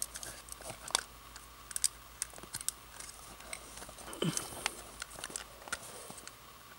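Faint, scattered clicks and taps of a plastic Yo-Kai Watch toy being handled and fiddled with, with a short low falling sound a little past four seconds in.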